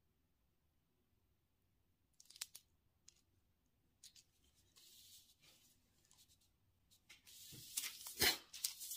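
Crinkling and rustling of a parchment-paper piping cone and parchment sheet in short, faint bursts while chocolate is piped. Louder handling rustles and knocks come near the end.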